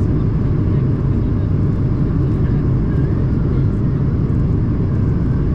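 Steady low rumble inside the cabin of an Airbus A220-300: the noise of its Pratt & Whitney PW1500G geared turbofans and the airflow around the fuselage, even and unchanging.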